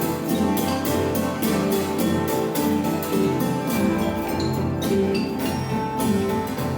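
Live acoustic instrument music: sustained string tones over a steady pulse of light percussive strikes, about three a second.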